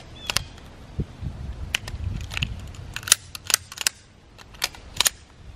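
Semi-automatic pistol being handled through a fast double-feed malfunction clear: a string of about fifteen sharp metallic clicks and clacks from the trigger, slide and magazine as the slide is worked and the magazine pulled and reseated.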